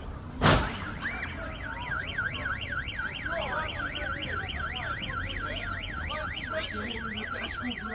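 A loud thump about half a second in, then a car alarm wailing with a fast up-and-down warble, about four sweeps a second.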